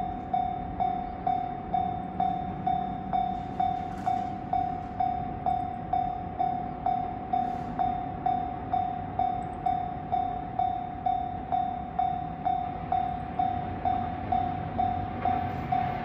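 Japanese railway level crossing's electronic warning bell ringing steadily, an even ding about twice a second, signalling an approaching train.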